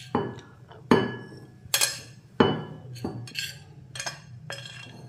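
Metal spoon and serving plate clinking against glass bowls while crumbly ragi puttu is portioned out: a string of sharp, ringing clinks at an uneven pace.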